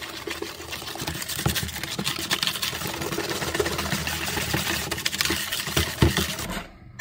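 Electric mixer with a whisk attachment running steadily as it beats thick chocolate cheesecake batter in a plastic bowl, then switched off shortly before the end.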